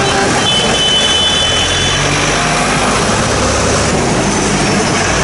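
Diesel engines of a line of tractors running as they drive slowly past, with a steady hiss of tyres and engine noise. A brief high tone sounds from about half a second to two seconds in.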